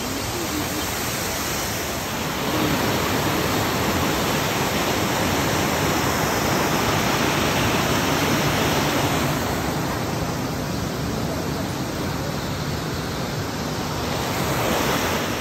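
Rushing water of a creek tumbling over boulders in white-water rapids: a steady rush that grows louder about two seconds in and softens again after about nine seconds.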